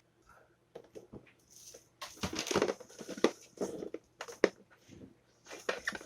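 Irregular clicks, taps and rustling of small objects being handled, busiest in the middle and again near the end.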